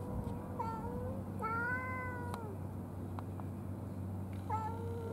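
A cat meowing several times in long, drawn-out calls, with a gap of about two seconds before the last one starts near the end.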